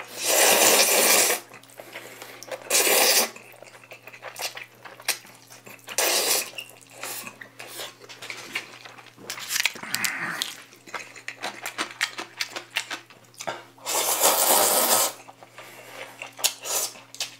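Jjajangmyeon noodles slurped up with a loud hiss several times, the longest slurps at the start and near the end. Between them come chewing and small clicks and taps of chopsticks against the bowl.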